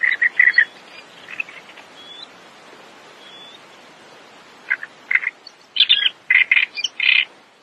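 A bird calling in quick runs of short chirps: a run right at the start, then several louder groups in the second half, over a steady hiss.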